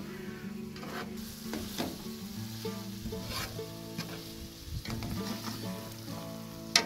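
Chicken drumsticks and onions frying in oil in a wide pan, sizzling steadily while a slotted metal skimmer scrapes and stirs through them. A sharp knock of the skimmer against the pan near the end is the loudest moment.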